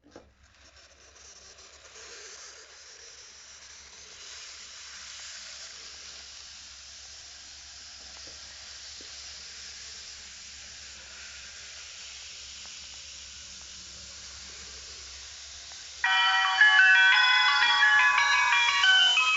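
A steady hiss, then about sixteen seconds in the Akita Shinkansen E3 series Komachi onboard chime starts playing: a louder melody of bright chime notes.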